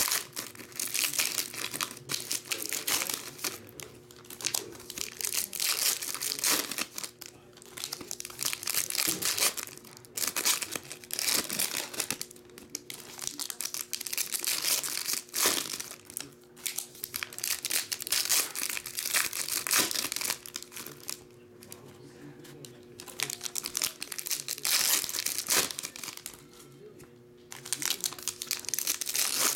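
Foil trading-card packs being torn open and crinkled by hand, one after another, in clusters of crackling bursts every second or two. A faint steady hum runs underneath.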